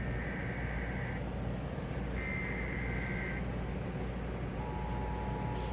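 Emergency Alert System broadcast: two roughly one-second bursts of the SAME digital header, a buzzy data warble. About a second later the steady attention tone sets in, all over a low radio hum and hiss.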